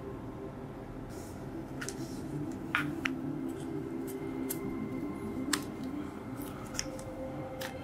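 Soft background music with a scattering of short, sharp clicks and taps from light handwork, about eight in all.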